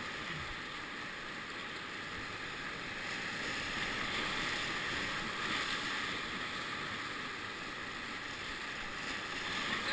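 Whitewater rapids rushing steadily around a raft, a little louder in the middle as the raft pushes through a breaking wave.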